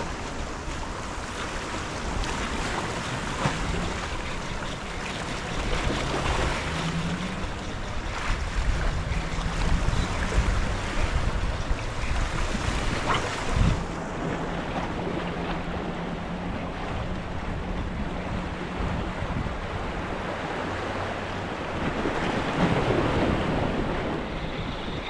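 Ocean surf washing against the shore, with wind buffeting the microphone.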